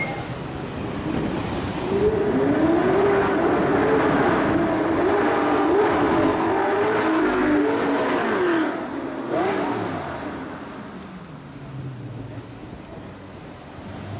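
Audi R8 sports cars revving hard on a city street, the engine note rising and falling again and again for several seconds. The sound then fades away as the cars move off.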